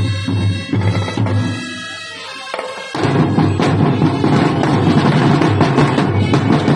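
Marching snare drumline with music: a melody over a steady bass note with drum hits, which thins out about two seconds in; about three seconds in the snare drums come in loud with fast, dense drumming that keeps going.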